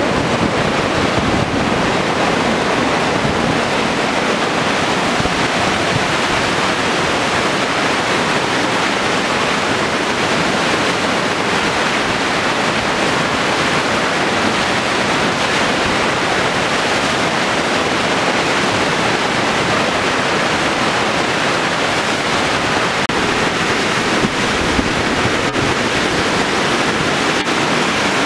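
A mountain river in monsoon flood, its muddy, turbulent torrent rushing past in a loud, steady wash of water noise.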